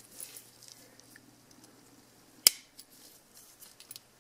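Sharp plastic snap about two and a half seconds in, as the plastic frame around a Fluke 83 multimeter's LCD unit pops free of a locking tab, with faint ticks and rustles of gloved fingers handling the plastic parts.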